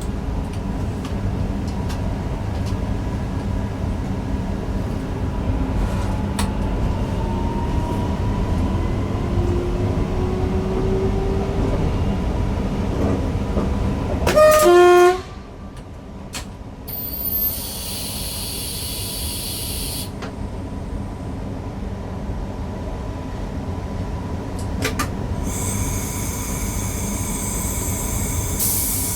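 Newag Impuls EN63 electric multiple unit running on the line, heard from the driver's cab: a steady rumble of wheels on rails, with a faint rising electric whine as it gathers speed. About halfway through comes a short, loud train horn blast, and then the running sound eases. Two spells of high-pitched whine follow.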